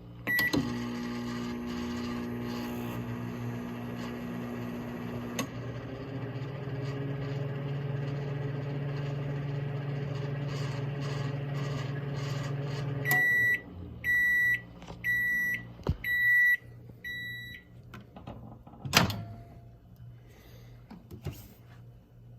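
Microwave oven: a keypad beep, then the oven running with a steady hum whose tone shifts about five seconds in. The hum stops and five beeps sound to mark the end of the cycle, followed by a sharp clunk.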